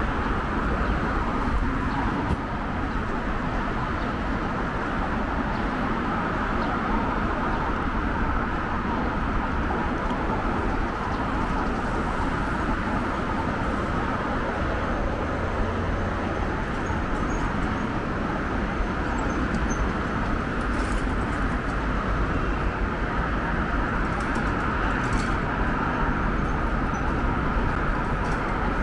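Steady road traffic noise from a busy multi-lane city avenue, a continuous even rush of passing cars.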